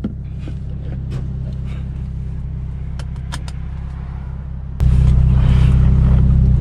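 Turbocharged Infiniti G37's engine running steadily with a low drone, with a few light clicks about three seconds in. Near the end the drone suddenly gets much louder and stays loud.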